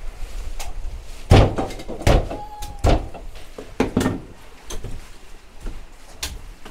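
Several sharp chopping thunks, a second or so apart and loudest about a second and a half in: a blade hacking open a young coconut for buko juice.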